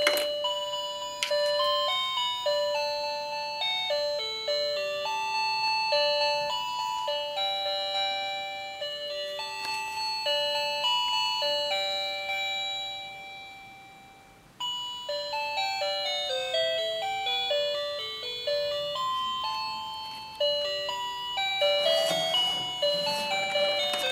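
Hello Kitty toy candy cart's built-in electronic melody: a simple chiming tune of single beeping notes that starts with a button press. A little past halfway it fades out and a second tune starts at once. Near the end a plastic rattle from handling the toy joins it.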